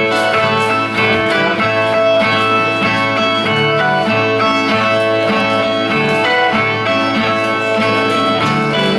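Viola nordestina, the Brazilian steel-strung viola of repentistas, plucked and strummed in a steady rhythmic figure with no singing: the baião de viola, the instrumental interlude played between the sung stanzas of a repente.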